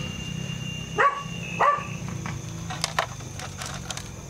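A dog barks twice, short and loud, about a second in and again just over half a second later, followed by a few light clicks.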